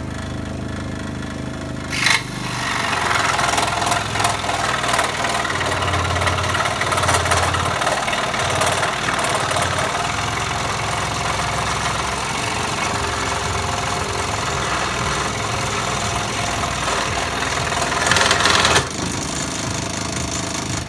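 Sealey variable-speed scroll saw running at its highest setting, its reciprocating blade cutting through a thick, hard piece of wood. The sound grows louder about two seconds in, holds steady through the cut, swells briefly near the end, then drops away.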